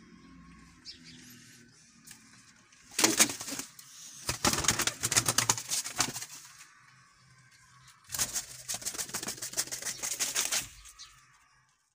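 Domestic pigeons' wings clattering as they flap and scuffle on a wooden perch, in two rapid, rattling bursts of a few seconds each.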